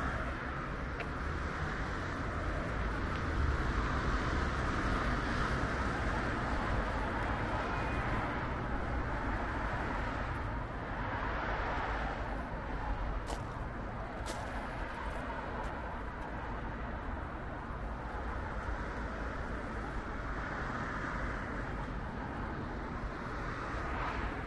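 Steady hum of distant road traffic, an even wash of noise with no single event standing out.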